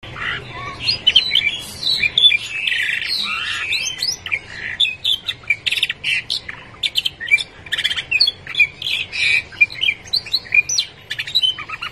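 Canary singing: a continuous, rapid run of chirps, short whistles and buzzy trills.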